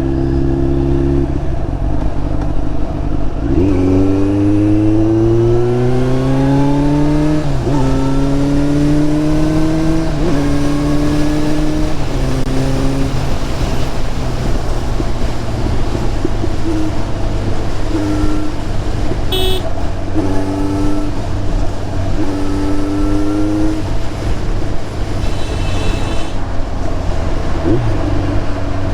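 Kawasaki Z900's inline-four through an SC Project slip-on exhaust, pulling away and accelerating through the gears: the pitch rises steadily, drops sharply at three quick upshifts, then settles into cruising with a few shorter pulls. A brief high beep sounds about two-thirds of the way through.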